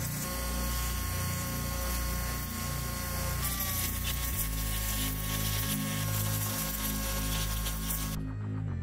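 Pressure washer jet spraying water onto bare motorcycle parts: a steady hiss with a steady whine from the machine, cutting off suddenly near the end. Background music runs underneath.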